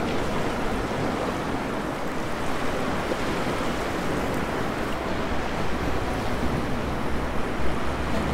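Shallow surf washing up a sandy beach: a steady, even rush of waves.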